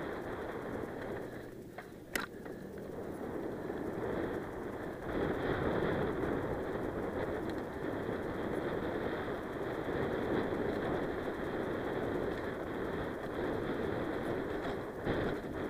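Mountain bike riding fast over dirt singletrack: a steady rush of tyre and wind noise, louder from about five seconds in, with one sharp clack about two seconds in as the bike takes a hit.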